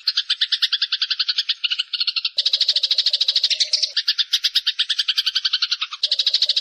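Layered songbird mastering recording: a rapid, evenly pulsed trilling call at about eight to ten pulses a second. A deeper trilling layer joins about two and a half seconds in, drops out around four seconds, and comes back near the end.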